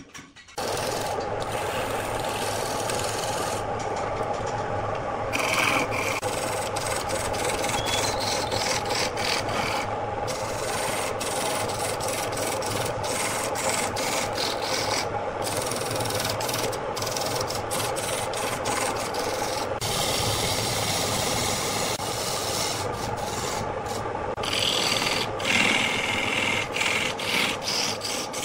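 Wood lathe running with a hand-held turning tool cutting into the spinning wooden workpiece, a steady scraping noise over the motor's hum. It comes in abruptly about half a second in.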